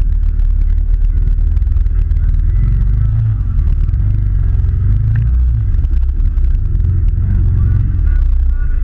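Can-Am Maverick side-by-side running at low speed over a muddy, rocky trail, a steady low engine rumble with scattered knocks and bumps from the vehicle working over the rough ground.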